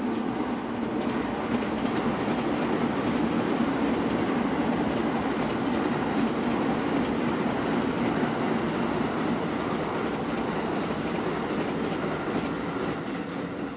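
Loud steady rumble of a passing vehicle. It swells over the first few seconds and eases off near the end. Light clicks of chopsticks against a bowl sound over it.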